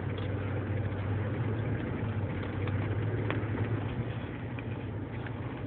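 Car engine running steadily with a low hum and road noise, heard from inside the cabin while driving.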